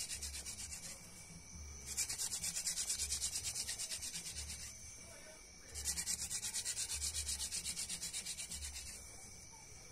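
Hand-drill fire-making: a wooden spindle spun back and forth between the palms, grinding into a wooden hearth board with a fast, rhythmic rubbing scrape. It comes in three runs of a few seconds each, with short pauses between.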